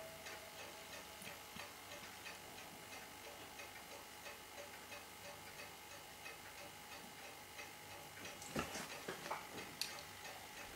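Steady, faint ticking of a mechanical watch or clock. A few sharper clicks of metal tweezers against the watch movement come about eight and a half to ten seconds in.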